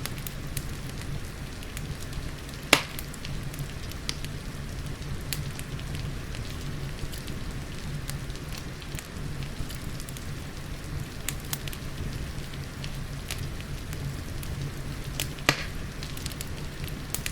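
Fireplace crackling: frequent small crackles and two sharp, loud pops, one about three seconds in and one near the end, over a steady low rush with rain.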